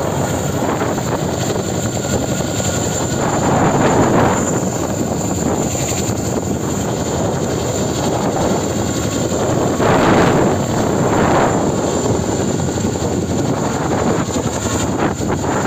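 Boeing Vertol 234 Chinook tandem-rotor helicopter hovering close overhead with a long line slung beneath it. Its twin rotors and turbine engines run loud and steady, swelling louder a few times, with a steady high whine above the rotor noise.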